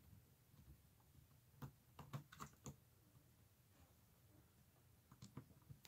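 Faint clicks of a small precision screwdriver and tiny screws being worked out of a laptop screen's metal frame: a cluster of clicks from about one and a half to nearly three seconds in, and a few more near the end.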